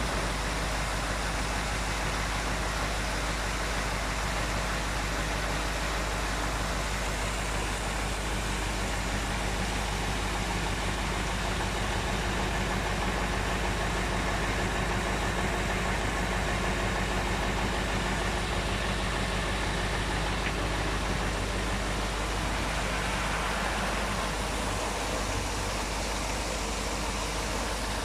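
Water cascading steadily from the tiers of a motor-pumped decorative fountain into its basin, over a constant low hum.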